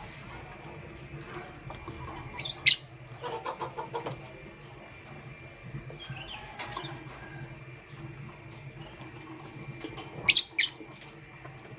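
Lovebirds chirping: a pair of sharp, high chirps about two and a half seconds in and again near the end, with a fast chattering run of calls just after the first pair, over a low steady hum.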